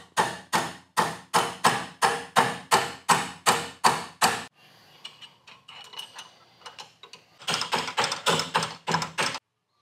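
A mallet repeatedly striking a steel bit extension used as the lever on an element socket wrench, about three blows a second, to break loose a stuck electric water heater heating element. A run of about a dozen blows, a pause of a few seconds with faint knocks, then a second, quicker run of blows near the end.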